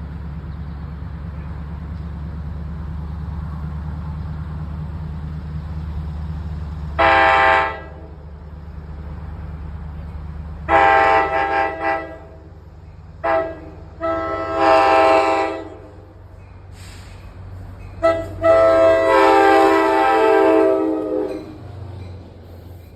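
GP40FH-2M diesel locomotive arriving, its engine drone running steadily underneath while the air horn sounds a series of five blasts, starting about a third of the way in: a short blast, a longer one, a brief toot, another longer one, and a long final blast near the end.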